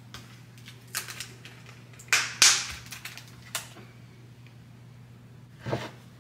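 Clicks and clatter of a plastic berry container, ceramic bowl and spoon being handled on a wooden kitchen counter, with the loudest clatter about two seconds in and a duller knock near the end. A steady low hum runs underneath.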